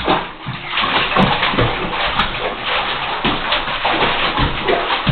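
Water in a bathtub splashing and sloshing over and over, in quick irregular splashes.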